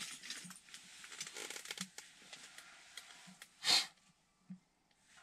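Rustling of winter clothing and gear with small clicks as an ice-fishing rod and line are handled, then one short, louder rustle a little after three and a half seconds in as the angler sits back on his seat.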